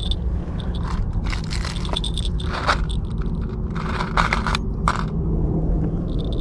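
Fishing tackle being handled while a rig is set up: a run of short scrapes and clicks over a steady low rumble.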